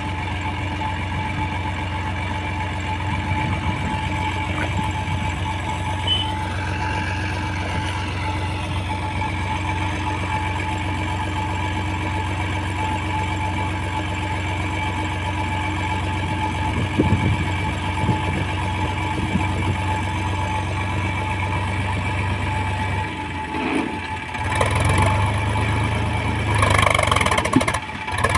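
HMT farm tractor's diesel engine running steadily while the tractor sits bogged in mud. About 23 seconds in it briefly drops, then picks up louder and rougher near the end.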